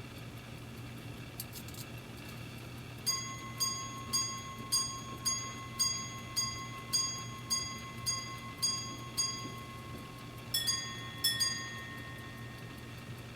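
A Swiss quarter repeater pocket watch striking the time on its gongs: about a dozen evenly spaced single strikes on the low gong for the hours, then two ding-dong pairs on two gongs for the quarters. A faint click comes shortly before the striking starts.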